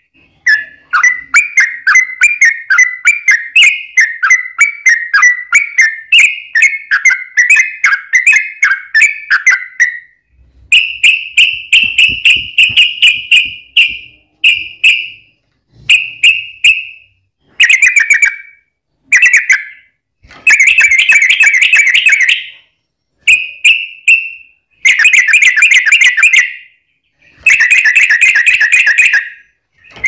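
Yellow-vented bulbul (trucukan) song, loud and clear: a rapid bubbling chatter of notes for about the first ten seconds, then a string of short bursts of fast repeated notes broken by brief pauses.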